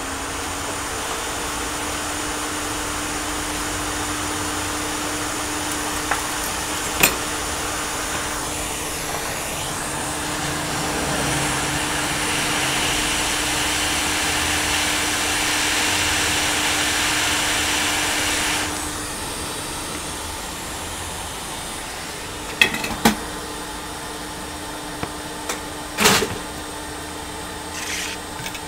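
Hot air rework station blowing steadily over a laptop motherboard to desolder a small surface-mount part, a steady hum under the rush of air, which grows louder for several seconds in the middle and then eases. A few sharp clicks of metal tools, about a third of the way in and again near the end.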